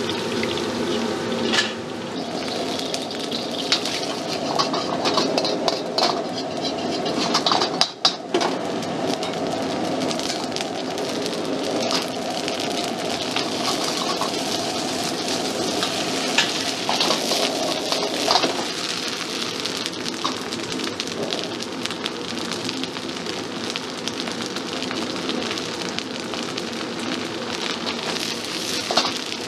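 Hot oil and food sizzling in a wok, first as deep-fried pieces drain from a wire strainer and then as they are stir-fried over a strong gas flame. A metal ladle scrapes and clanks against the wok throughout the stir-frying.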